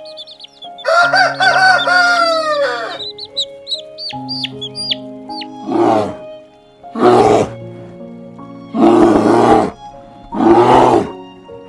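Rooster crowing once in a long call that drops in pitch at the end, followed by a few short high peeps and then four harsh, raspy calls, over steady background music.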